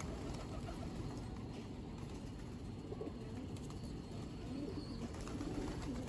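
Feral rock pigeons cooing, low warbling calls rising out of the flock around the middle and again near the end, with wings flapping as birds take off and land.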